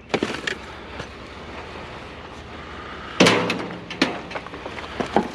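Junk being handled and knocked about, with light clicks and then a loud clang that rings briefly about three seconds in, followed by a few lighter knocks.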